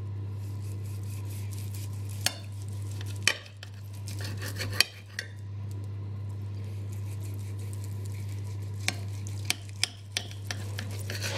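A kitchen knife sawing slices off a stuffed roast on a ceramic plate, the blade clicking sharply against the plate a few times, about 2, 3 and 5 seconds in and again three times near the end, over a steady low hum.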